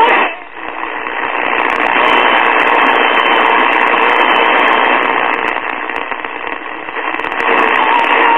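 Steady static hiss from a 1940s Emerson five-tube AM radio's speaker, tuned between stations. The static dips briefly about half a second in, and a faint whistle comes through near the end.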